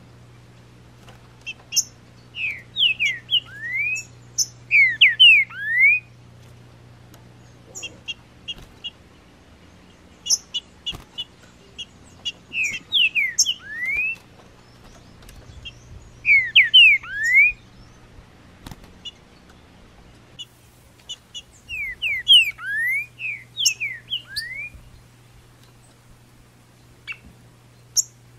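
Green-winged saltator (trinca-ferro) song: loud phrases of sweeping whistled notes, repeated every few seconds, with sharp high chip notes in between.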